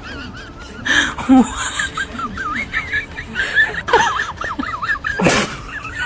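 High-pitched, warbling laughter throughout, broken by short noisy bursts about a second in, around four seconds, and near the end.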